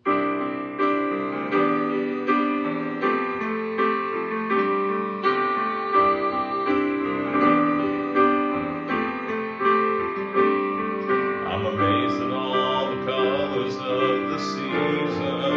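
Casio electronic keyboard played with a piano sound: a steady run of struck chords, each ringing and fading. It starts suddenly out of silence.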